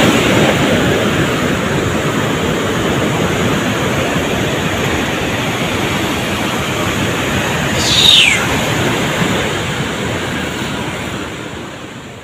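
Steady rushing of the flooded Indus pouring through Taunsa Barrage's gates. About eight seconds in, a short high tone falls in pitch over it, and the sound fades out at the end.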